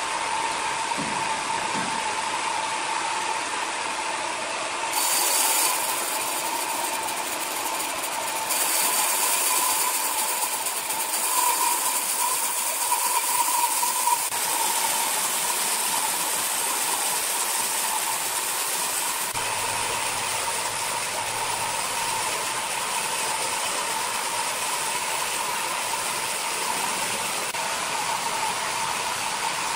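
Large horizontal band sawmill running, its blade sawing lengthwise through a big red hardwood log: a steady machine noise with a constant whine, and a harsher hiss that comes in for about a second near the start and again from about a third of the way in until about two-thirds through.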